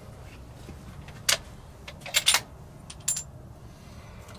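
Sharp metallic clicks and clinks from hands working the rifle and its cartridges at the rest: one click about a second in, a quick run of three around two seconds, then a clink with a short high ring about three seconds in.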